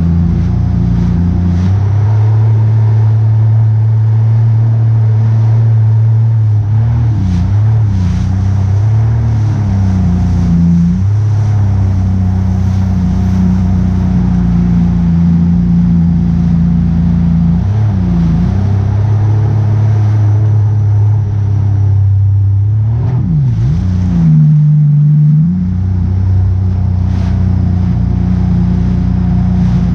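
Engine running steadily, its pitch dipping and coming back up several times as the throttle is eased off and opened again, most markedly about 7, 11, 18 and 23 seconds in.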